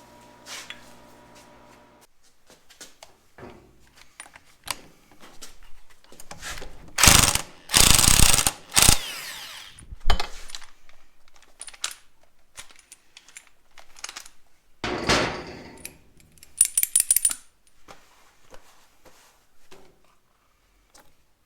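Hand tools and a power tool at work loosening fasteners during clutch removal: scattered metal clicks and clinks, with several loud bursts of tool noise about seven to nine seconds in, at ten seconds, and around fifteen seconds, then a quick rattle of hits near seventeen seconds. A steady hum cuts off about two seconds in.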